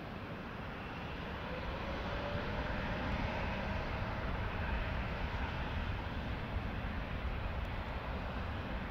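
Boeing 787-9's twin turbofan engines spooling up for take-off: a steady jet rumble that grows louder over the first two seconds and then holds, with a faint rising whine.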